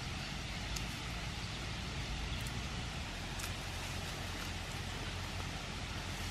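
Leafy manzanilla bush branches rustling as green fruit is picked off by hand, with a few faint snaps, over a steady low outdoor hiss.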